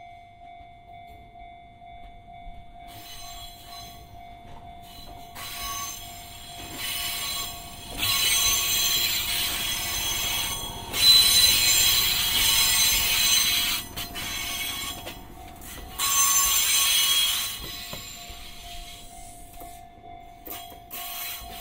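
Fujikyu 1000-series electric train arriving slowly over curved points, its wheels squealing in several high-pitched stretches. The squeal is loudest about halfway through and dies away near the end as the train comes to a stop.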